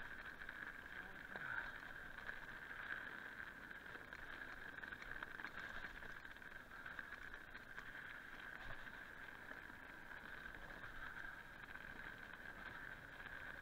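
Mountain bike rolling down a dirt singletrack: faint tyre-on-dirt noise and small rattles under a steady high hiss.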